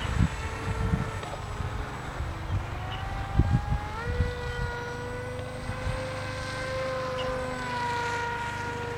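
Electric motor and propeller of an AXN Floater Jet RC plane whining in flight. The pitch sags a little, then jumps up as the throttle is opened about four seconds in and holds steady. Wind gusts buffet the microphone underneath.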